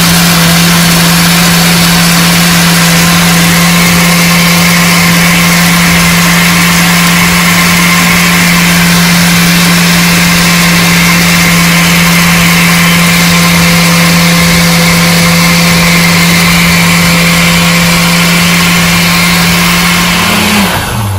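Countertop blender motor running steadily at high speed, blending milk, fruit, cashews and cornflakes into a smoothie. Near the end it is switched off and the motor's pitch falls as it winds down.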